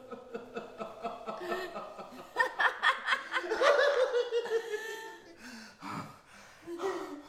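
A woman's laughter: a run of quick chuckles, then louder bursts of laughing about two and a half seconds in, dying away toward the end.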